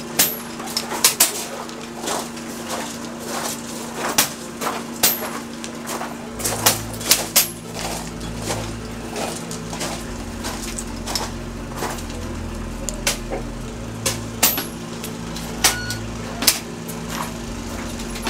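Air rifles firing on a shooting line: many sharp shots at irregular intervals, some only a fraction of a second apart, over a steady low hum. A low rumble comes in about six seconds in.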